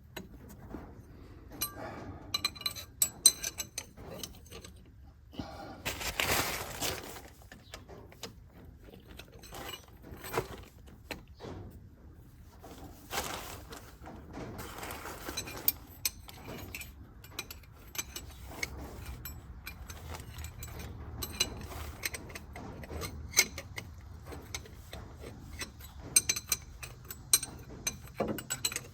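Hand wrenches clinking and rattling against metal while being set on and strained against a tightly seized fitting, in scattered sharp clinks. There are two longer scraping rustles, about six and thirteen seconds in.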